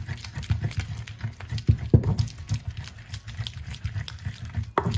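Wooden pestle (tapoli) grinding and mashing garden eggs, onions and peppers in an earthenware grinding bowl (asanka): a quick run of dull, wet thuds and scrapes, several strokes a second, with a sharper knock near the end.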